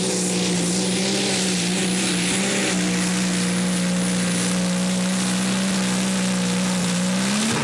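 Small modified pulling tractor's diesel engine running flat out under full load as it drags the weight sled. The pitch holds steady, with a faint high whine over it, and rises slightly just at the end.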